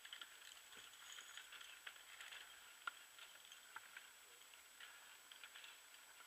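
Near silence with faint, scattered light ticks and clicks throughout, one a little louder about three seconds in.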